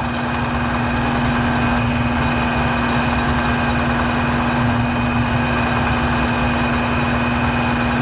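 Drill press running steadily with a constant hum and a faint high whine as its bit drills a pilot hole in a steel plate.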